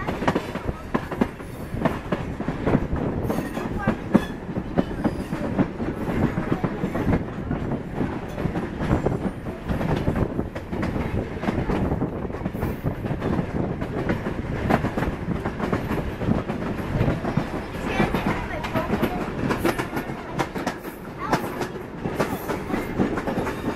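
A caboose rolling along the track: steady rumble of the wheels on the rails, with frequent irregular clicks and knocks.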